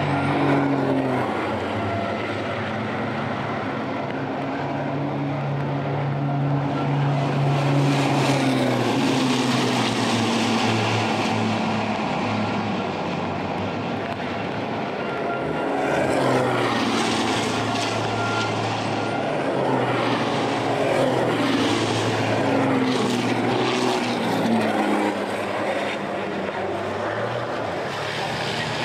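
Several turbo-diesel racing truck engines running hard as the trucks pass, the engine pitch rising and falling with throttle and gear changes and the sound swelling as trucks go by.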